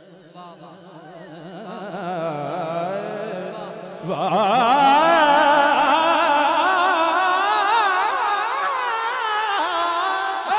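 A male naat reciter singing a long, drawn-out melismatic phrase with wavering, ornamented pitch. It starts faint, builds, then swells much louder about four seconds in.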